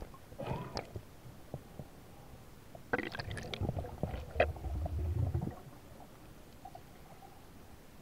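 Watery gurgling and squelching, in a short bout about half a second in and a longer, louder one from about three seconds in that stops about five and a half seconds in.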